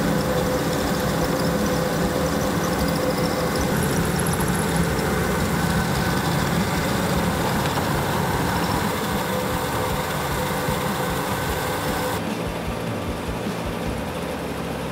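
Treadmill motor and belt running steadily at speed, with a Lego Technic truck's wheels rolling on the moving belt: a continuous mechanical whir and rumble with faint steady tones. About twelve seconds in, the sound loses its high hiss and gets a little quieter.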